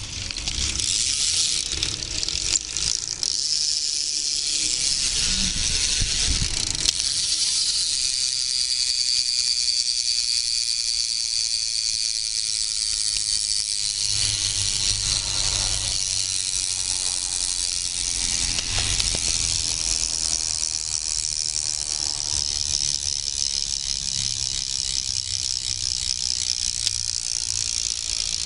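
Odyssey freecoaster/cassette rear BMX hub freewheeling as the wheel coasts, its pawls making a loud, continuous fast high-pitched buzzing click. The hub is uncleaned but running smoothly.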